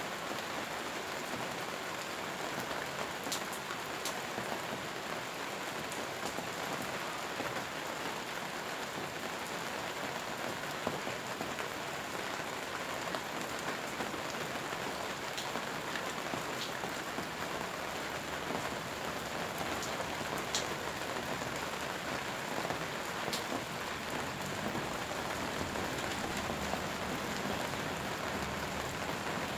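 Steady rain falling, an even hiss with occasional sharper single drop ticks.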